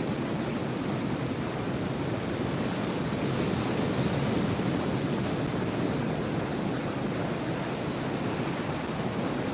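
Steady, even rush of ocean surf, with no single breaking wave standing out; it swells slightly about four seconds in.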